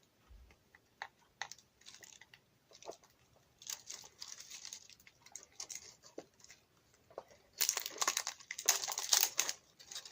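Packaging being handled and crinkled by hand while a charger is unwrapped. Scattered light clicks and crackles at first, then a louder run of crinkling from about seven and a half to nine and a half seconds in.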